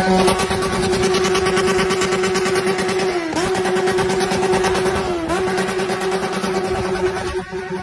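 Yamaha XJ6 inline-four motorcycle with an open, muffler-less exhaust, held at high revs in one steady, loud note. The pitch dips briefly and comes straight back twice, about three and five seconds in.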